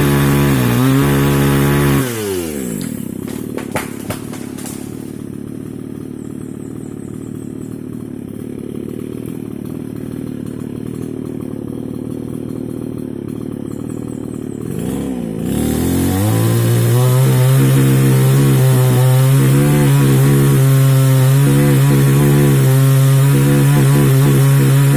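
Two-stroke mini chainsaw engine running at high revs, dropping back to a low idle about two seconds in, then revved up again about fifteen seconds in and held at a steady high rev.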